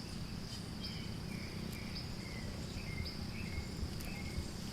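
Steady high-pitched drone of insects, with short chirps repeating every half second or so.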